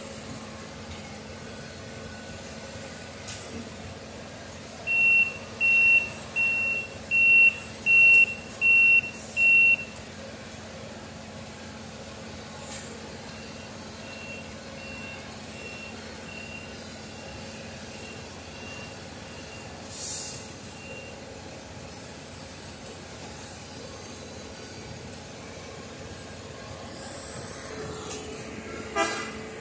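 Backup alarm on a railroad maintenance-of-way machine beeping as the machine moves along the track: seven loud beeps a little under a second apart, then a run of fainter beeps. Underneath, the machines' engines run steadily, with a short hiss about twenty seconds in.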